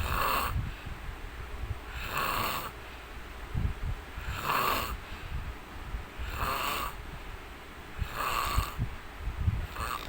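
A sleeping man snoring, one rasping snore about every two seconds.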